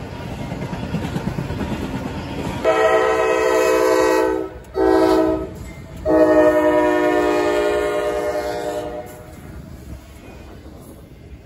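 Freight locomotive air horn sounding a long blast, a short one, then a longer one, over the rumble of a passing train; the rumble fades to a lower level once the horn stops.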